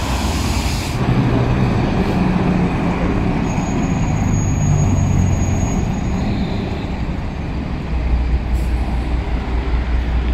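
Diesel tractor-trailer engines running amid passing street traffic, with low steady engine tones. A deeper, louder low rumble comes in about eight seconds in.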